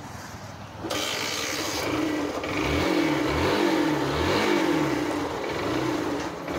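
Yamaha SZ-R single-cylinder four-stroke motorcycle engine, started on the electric self-starter about a second in, then revved up and down several times with the throttle. The bike is in for lacking pull.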